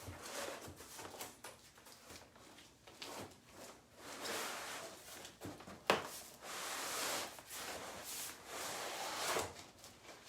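A shipping package being opened by hand: packaging scraping and rustling in several stretches of a second or so, with a sharp snap about six seconds in.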